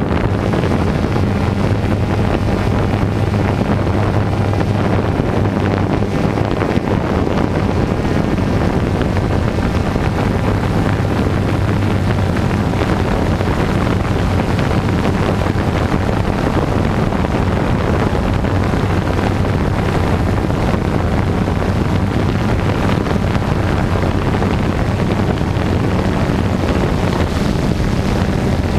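DJI quadcopter drone's motors and propellers buzzing steadily, picked up by the drone's own onboard camera, with a steady low hum under the noise.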